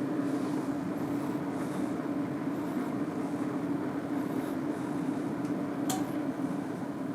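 A steady low mechanical hum, with a single sharp click about six seconds in.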